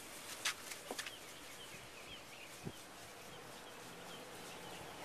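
Quiet outdoor background with faint, brief chirps of small birds and a few short clicks.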